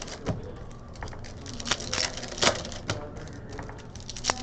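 Trading cards being handled and flipped through by hand: irregular sharp clicks and snaps of card stock, some louder than others, over light rustling.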